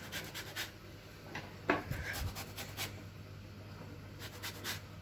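Citrus peel being grated for zest: uneven rasping and scratching strokes on a grater, with a sharper knock about a second and a half in.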